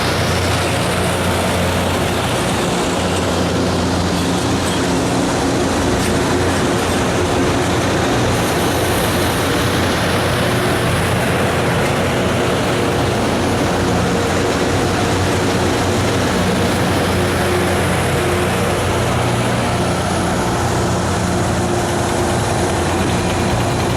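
LORAM RG308 rail grinder running: a steady, loud drone of its diesel engines under a dense, even noise.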